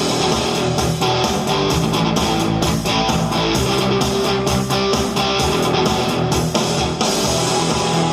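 Pop music with strummed guitar over a steady beat.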